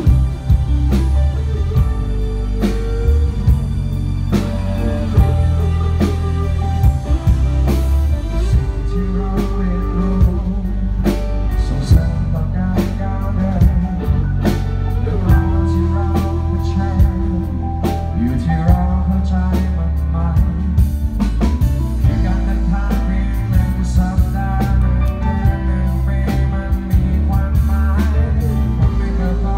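Live band playing a song: electric guitars, acoustic guitar, bass guitar and drum kit.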